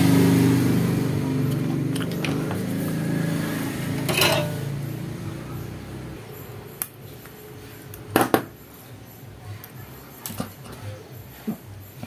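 Scattered clicks and light knocks of hand work on a small power-adapter circuit board, the loudest a pair of knocks about eight seconds in. A low steady hum fades out over the first few seconds.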